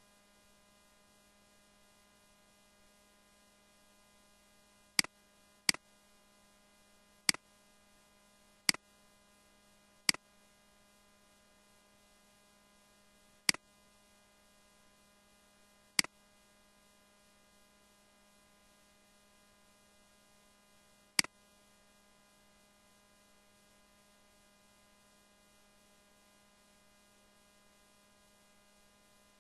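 Eight sharp computer mouse clicks, spaced irregularly from about five seconds in to about twenty-one seconds in, over a steady electrical hum.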